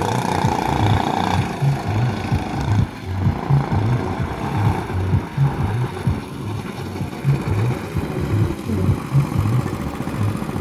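Small go-kart engines running with an uneven, pulsing low chug, idling and revving as karts sit and move off in the pit area.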